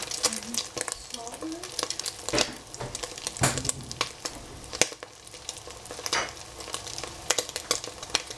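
Food sizzling in a hot frying pan while a spatula stirs and scrapes against the pan, giving irregular sharp clicks and scrapes over a steady sizzle.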